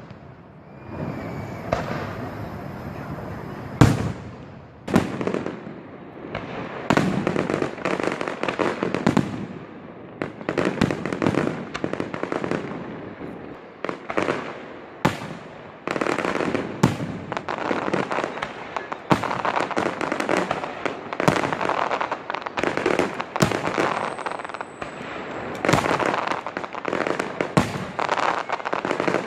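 Fireworks display: sharp booms of aerial shells bursting every second or two, with crackling and hiss between them that thickens into a near-continuous barrage from about six seconds in.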